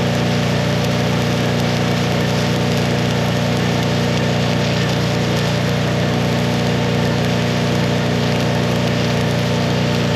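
Miller welding machine running with a steady hum under load while a stick-welding arc crackles and sizzles without a break.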